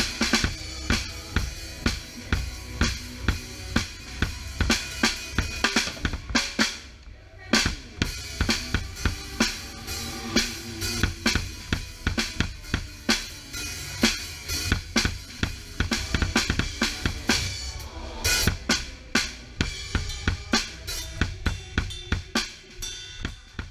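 Drum kit played in a steady rock beat of kick, snare and cymbals, heard close up from beneath the kit, with a short break about six and a half seconds in before the beat picks up again.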